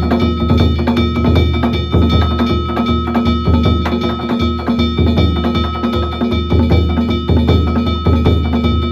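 Danjiri festival music: a taiko drum beating with small hand-held gongs (kane) struck in a rapid, driving rhythm, their metallic ringing running on between strikes.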